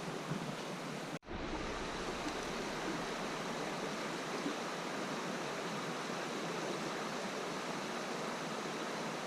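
Steady rush of flowing river water, with a brief dropout about a second in.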